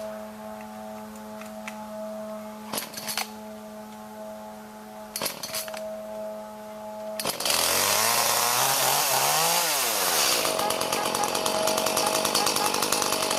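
Two-stroke Echo chainsaw: first a steady low hum with a soft knock every two to three seconds, then about seven seconds in the saw opens up loudly, its pitch climbing and then sagging as it loads up in the wood, before running on steady at full throttle, cutting.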